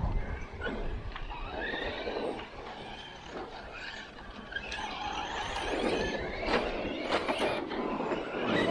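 Electric RC cars running on a dirt track: a motor whine that rises and falls, over tyre and dirt noise, with a few sharp knocks in the second half.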